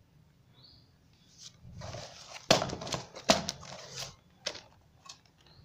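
Rustling and crinkling of a shrink-wrapped cardboard box being picked up and handled, with two sharp knocks a little under a second apart in the middle, then a few light ticks.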